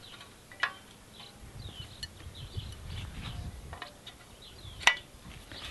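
Faint bird chirps over a low rumble, with two sharp clicks as rods are pushed into the sockets of a paramotor frame, the louder click near the end.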